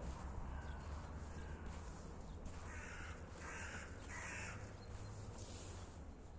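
A crow cawing three times in quick succession about three seconds in, over footsteps and a low steady rumble.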